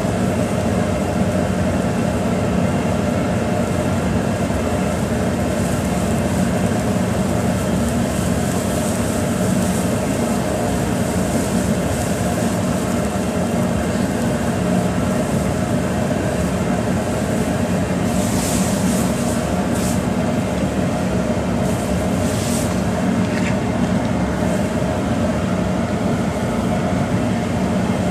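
Steady, loud roar of a commercial kitchen, with a low hum that never lets up. A few brief high scrapes or sizzles come through about 18 and 22 seconds in.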